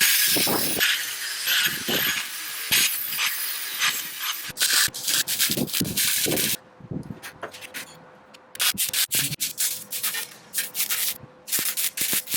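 Electric arc welding on steel: the arc crackling and sputtering in irregular runs. It eases off for a couple of seconds about halfway through, then picks up again.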